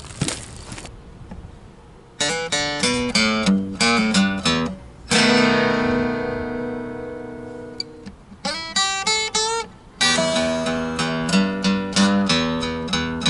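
Acoustic guitar playing a blues opening: picked single-note phrases, a chord about five seconds in left to ring out for a few seconds, a quick run, then a steady picked pattern. A short knock comes at the very start.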